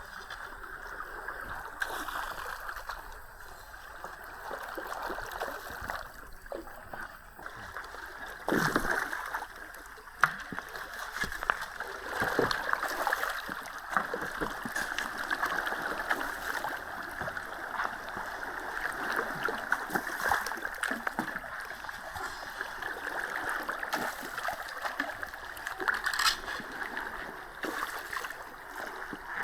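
River water gurgling and splashing around a bamboo raft as it drifts along, with a few louder splashes.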